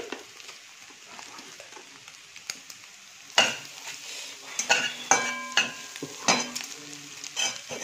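Metal spatula stirring and tossing egg fried rice in a metal wok over a faint frying sizzle. From about three seconds in the spatula clanks and scrapes against the pan repeatedly, a few strikes leaving a brief metallic ring.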